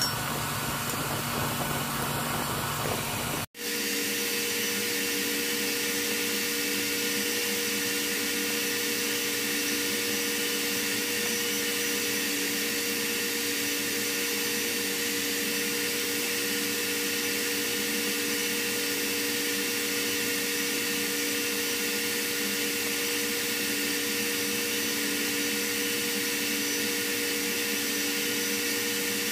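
Steady machinery drone of a ship's engine room: two constant hum tones over an even hiss, unchanging throughout, with a short dropout a few seconds in.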